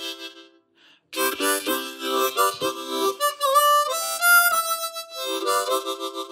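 Diatonic harmonica (blues harp) played with the hands cupped around it, the notes started with a tongued 'ta' attack. A held chord fades out, then after a short gap comes a run of short, separated notes and chords. Midway one note dips in pitch and comes back, followed by a few held notes and more short tongued notes.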